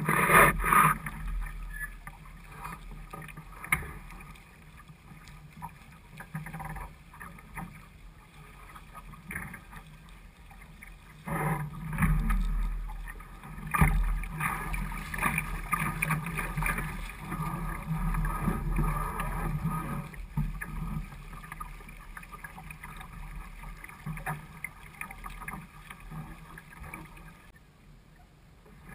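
Water rushing and slapping against a small sailing dinghy's hull as it sails through choppy water, in uneven surges: loud near the start and again from about twelve seconds in, with a few sharp knocks.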